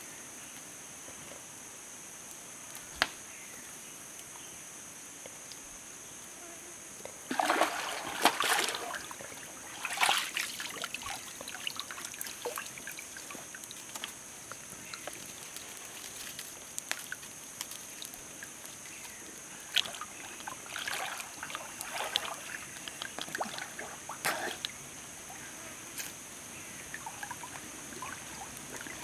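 Water splashing and sloshing as a person wades and swims in a river pool, in irregular bursts from about seven seconds in, loudest near the start of them. A steady high insect drone runs underneath, with one sharp click about three seconds in.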